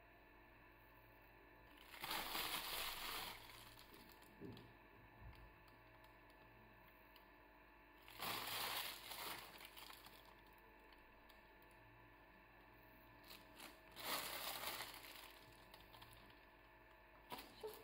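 Plastic piping bag crinkling in the hands, in three short bursts spread a few seconds apart.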